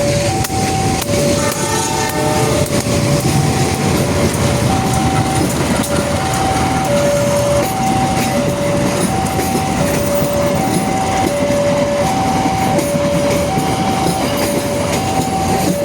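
Railway level-crossing alarm sounding a steady two-note alternating signal, switching pitch about every three-quarters of a second, over the rumble and wheel noise of a train passing slowly.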